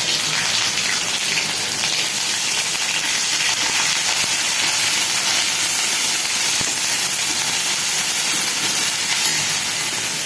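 Ginger-garlic paste sizzling steadily as it fries in hot oil in a cooking pan.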